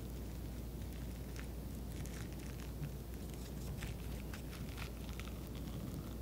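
Wooden spoon scraping the seeds and stringy pulp out of a halved, microwave-softened kabocha squash: scattered small wet clicks and crackles over a low steady hum.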